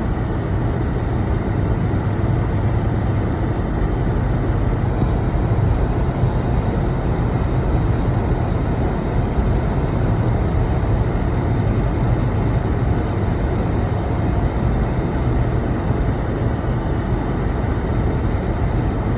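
Steady engine and road noise heard inside the cabin of a moving Mercedes-Benz, with a low, even hum.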